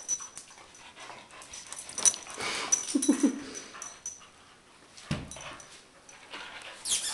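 Two dogs greeting each other excitedly, with a short whine from one of them about three seconds in. Scattered clicks and scuffling run around it, with a dull thud about five seconds in.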